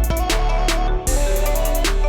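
A Redmi Note 14 5G ringtone: an electronic music track with a steady drum beat, deep bass and a short melody, cutting out for a moment about halfway through before the beat resumes.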